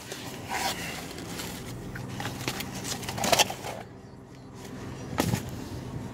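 Handling noise: a cardboard burger box and paper being moved about, with a few short rustles and scrapes over a steady low hum.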